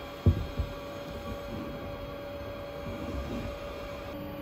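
Steady hum at one pitch, with two short knocks a fraction of a second in.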